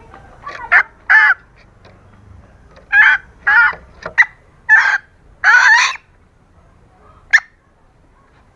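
Female green junglefowl calling, the hen's call used to lure cocks: about eight short calls in three uneven groups, the longest about six seconds in. A single very brief note follows near the end.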